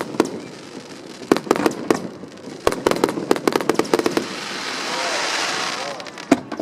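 Aerial fireworks going off: rapid volleys of sharp bangs, then a swelling hissing crackle about five seconds in, and one more bang near the end.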